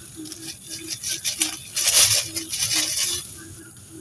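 Frogs croaking in a quick, even rhythm of short low calls, over the steady high shrill of insects. A loud rustling noise comes up around the middle.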